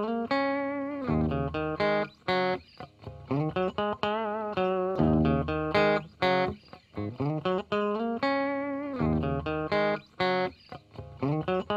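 Background instrumental music: a plucked guitar melody with wavering, vibrato notes over a low bass line.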